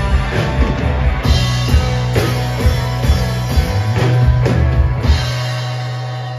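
Live rock band with electric guitars, bass and drum kit playing out the end of a song: a run of drum hits, then about five seconds in the drums stop and a held low bass and guitar note rings on, slowly fading.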